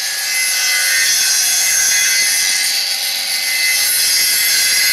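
Small saw disc of a homemade copying machine cutting a wooden propeller blade: a steady, high-pitched whine and hiss as the disc runs through the wood. The disc is already somewhat dull and due for sharpening, the owner says.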